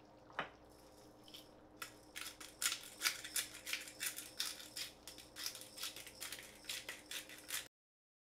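Hot olive oil sizzling and popping in a cast-iron skillet of shrimp and mushroom ajillo, a fast, irregular crackle that thickens about two seconds in and cuts off suddenly near the end.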